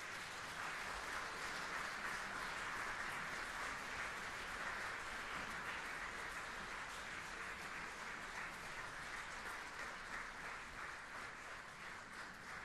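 Theatre audience applauding a ballet dancer after her variation, a steady clapping that slowly dies down.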